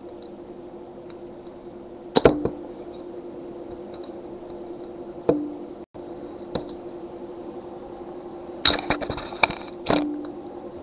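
Sharp clicks and knocks of small parts being handled and pried apart during disassembly of a device's top screen, a few single clicks and then a quick cluster of them near the end, close to the microphone over a steady low hum.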